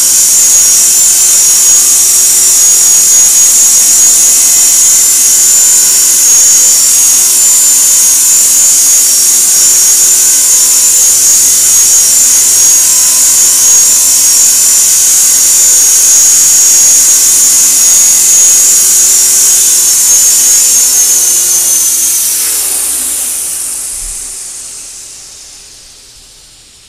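Electric 450-size RC helicopter (EXI 450) running at flight speed with a steady high whine from the motor and main gear. About 21 seconds in the power is cut and the rotor spools down, the whine falling in pitch and fading away.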